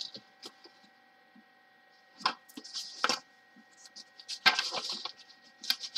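Sheets of paper being handled and shuffled on a desk: a couple of short crinkles about two seconds in, then a longer rustle near the end, over a faint steady hum.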